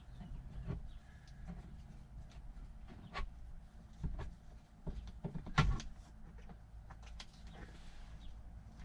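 Scattered clicks and knocks of hand tools and loosened parts being handled while dismantling a truck's shifter and floor trim. The loudest knock comes about five and a half seconds in.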